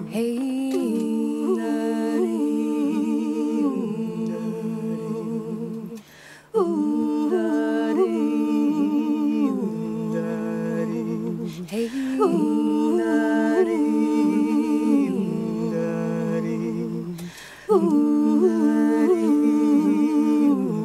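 Wordless a cappella vocal harmony: several women's voices humming and singing together in a repeating phrase, which breaks off briefly about every six seconds.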